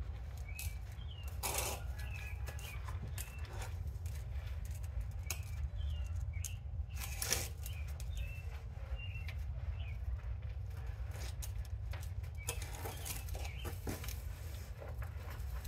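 Intermittent rustling and scraping as mulch and plants are handled by hand in a planter bed, over a steady low rumble, with small birds chirping now and then.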